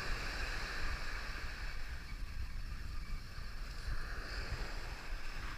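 Wind buffeting the microphone: a steady rumbling hiss with no distinct events.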